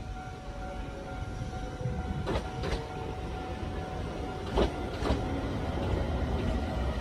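Kintetsu electric train passing, its wheels clacking over rail joints in two quick pairs, about two and a half and four and a half seconds in, over a rumble that grows louder and a steady hum.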